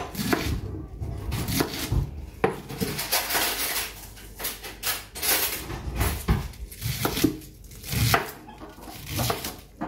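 Chef's knife cutting through white cabbage and knocking on a wooden cutting board in irregular strokes, with some clatter from the pot as the cut cabbage is dropped in.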